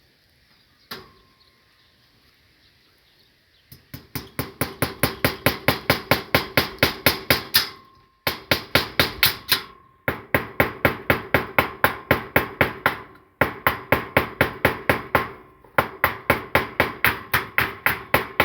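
Hammer blows during fence repair: a single blow, then several long runs of rapid, even strikes, about five a second, each leaving a brief ringing tone.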